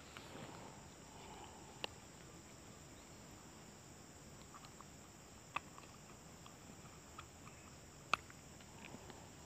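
Faint steady insect drone with three sharp clicks, about two, five and a half, and eight seconds in, as hands handle fishing gear, plus a few fainter ticks.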